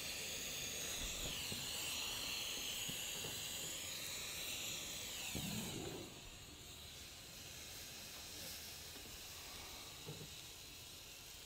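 Gas torch flame hissing steadily while it heats copper in a melt dish, dropping in level about six seconds in.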